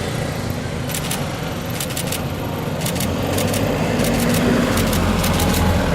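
Boat engine running steadily, its low hum growing louder about two-thirds of the way in, with scattered light clicks and rattles over it.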